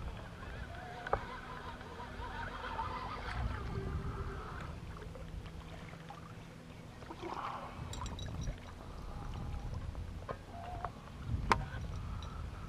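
Quiet ambience aboard a small fishing boat on a calm lake: a low wash of water and wind, broken by a few sharp clicks.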